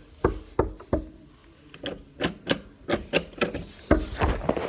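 Irregular knocks and thumps from footsteps and from a phone being handled and jostled as it is carried while walking.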